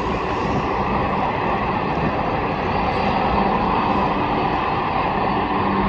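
Steady, loud jet airliner engine noise: a continuous rushing roar with a faint low hum underneath.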